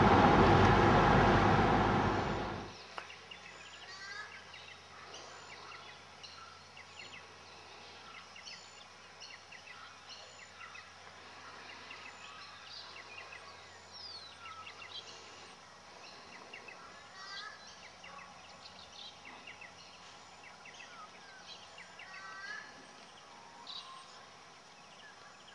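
A car's road and engine noise for about the first two and a half seconds, cutting off suddenly. After that, many birds chirp and whistle in short calls and sweeps.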